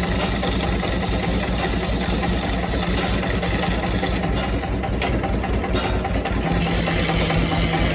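Wood lathe running steadily with a low motor hum and an even pulse, with a high hiss that drops away for about two seconds past the middle.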